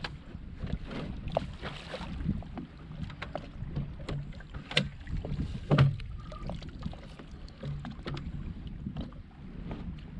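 Knocks and clunks from handling the bow trolling motor and gear on a small fibreglass boat, the loudest about five and six seconds in, over a low rumble of wind on the microphone. The motor itself is not running.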